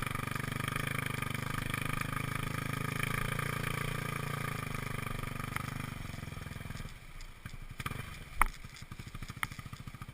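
Motorcycle engine running steadily, then dropping about seven seconds in to a slow, even idle. A sharp click comes during the idle, and a second, softer one about a second later.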